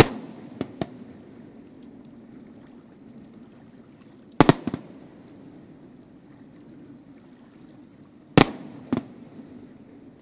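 Aerial firework shells bursting: three loud bangs about four seconds apart, each followed by one or two smaller cracks, over a steady low background rumble.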